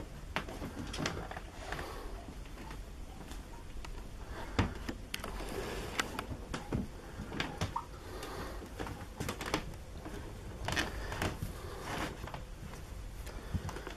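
Irregular light taps, clicks and rustles of a cat batting at and rolling among electrical cables on a wooden floor, with a few sharper knocks scattered through.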